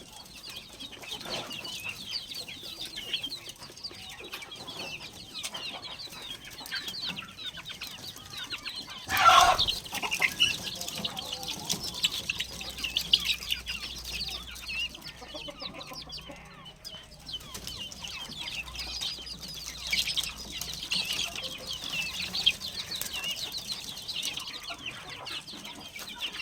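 Baby chicks peeping continuously in quick high chirps, with adult chickens clucking among them. About nine seconds in there is a brief loud burst from the flock.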